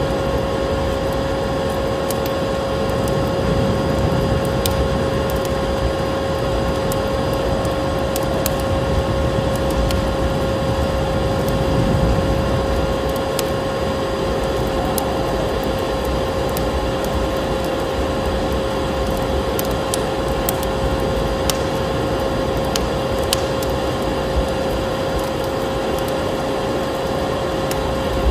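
Vacuum cleaner motor running steadily with a constant whine, layered with the sharp pops and crackles of a wood fire and a low wind rumble.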